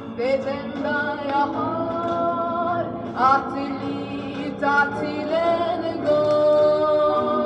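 A 1960s Swedish gospel song recording: singing with accompaniment, the voice sliding up into long held notes.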